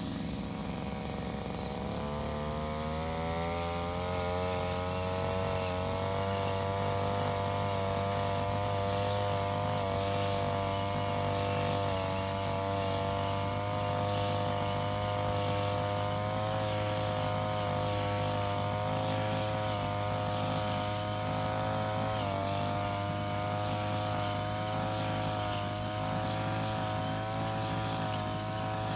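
Handheld engine brush cutter revving up from a lower speed about two seconds in, then running steadily at high speed with slight dips as it cuts through grass. Occasional sharp ticks sound over the engine in the later part.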